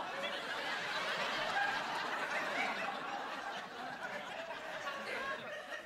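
Studio audience laughing, one long laugh that slowly eases off.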